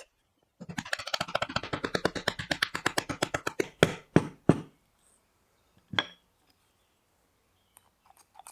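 Hand-tool work on a small piece of wood: a quick run of rapid, closely spaced strokes, then three heavier knocks and a single knock a little later.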